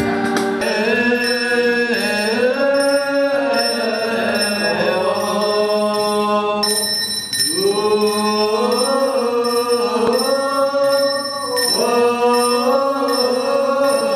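Church choir singing a slow liturgical chant in phrases that rise and fall, with a few steady ringing tones underneath.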